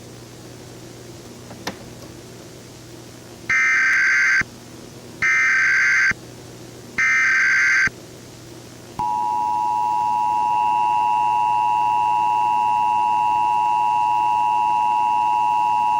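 Emergency Alert System broadcast tones: a small click, then three short bursts of SAME digital header data, each just under a second and evenly spaced. About nine seconds in, the steady two-tone EAS attention signal starts and holds, over a faint low hum.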